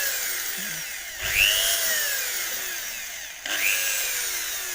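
Electric hand drill boring out the rivets of a Bajaj Pulsar motorcycle clutch housing, in short runs. It restarts with a sharp whine about a second in and again past the middle, each run tapering off as the bit cuts into the rivet head.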